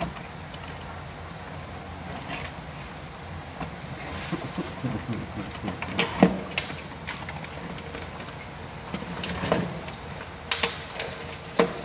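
Scattered light knocks, clicks and scrapes of a tape measure and hands handling a horseshoe crab's shell on a wooden board, over a steady low hum.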